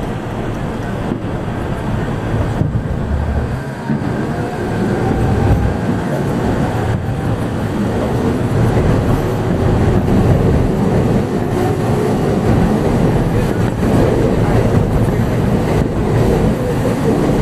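Train running, a steady low rumble of wheels and motors that slowly grows louder, with a faint rising whine about halfway through.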